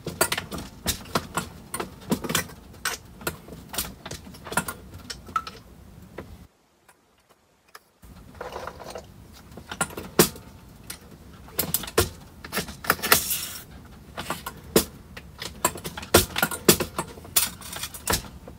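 MEC 600 Jr. shotshell reloading press being cycled at working speed: a steady run of sharp metallic clicks, clacks and short rattles from the handle strokes and moving parts as 12-gauge hulls are reloaded. The sound drops out completely for a moment about six and a half seconds in.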